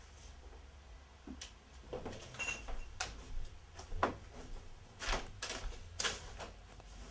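Irregular knocks, clicks and clatter, about eight separate hits spread over several seconds, the sharpest about four seconds in, over a steady low hum.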